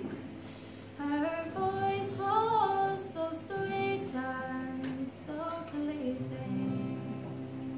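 A young woman's solo voice singing a slow traditional Irish ballad, holding and ornamenting long notes, over her own acoustic guitar accompaniment. A new sung line starts about a second in.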